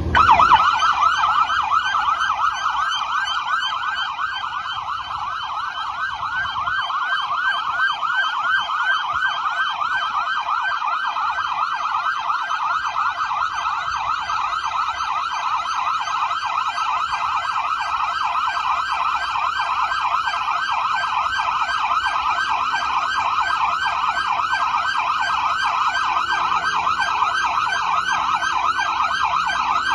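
Police car sirens yelping together in fast, repeated rising and falling sweeps, sounded as a salute.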